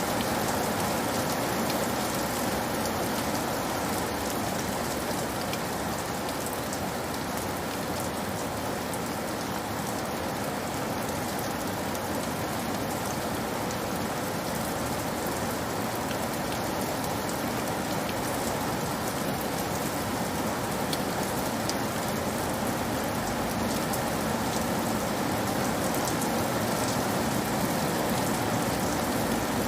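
Steady rain falling on a roof, a dense even patter with many fine drop ticks.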